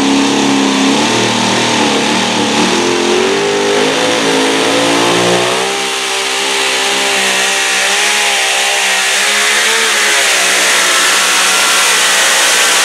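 Two-wheel-drive pulling truck's engine running hard at full throttle while it drags a weight-transfer sled down the track. Its pitch wavers up and down as the load changes.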